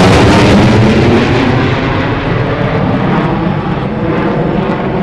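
MiG-21 LanceR's Tumansky R-13 turbojet heard loud just after the fighter's fast low pass. The noise is loudest at the start and then fades gradually as the jet flies away.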